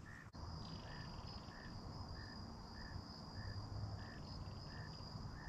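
Insects calling: a steady high trill with a lower chirp repeating about twice a second, over a low rumble.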